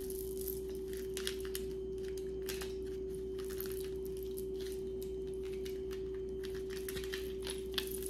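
Faint, scattered light clicks and clinks of costume jewellery being handled, over a steady mid-pitched hum.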